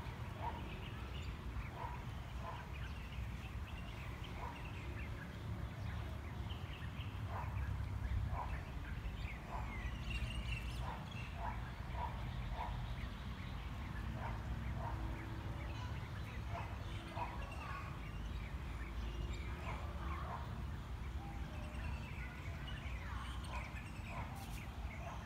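Wind buffeting the microphone in a low, uneven rumble. Birds call and chirp in short, scattered notes in the background.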